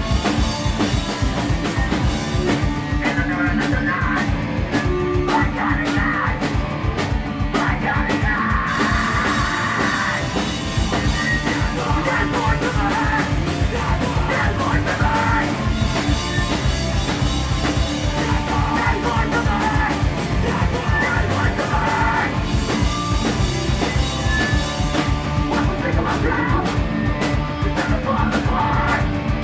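Metalcore band playing live at full volume: distorted guitars, bass and driving drums with a steady fast beat, and a vocalist screaming into the microphone.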